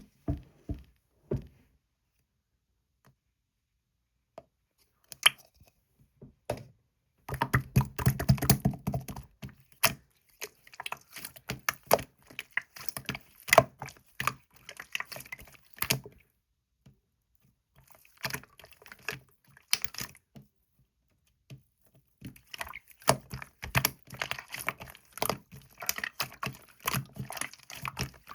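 Quick irregular runs of sharp clicks and taps, coming in bursts a few seconds long with quiet pauses between.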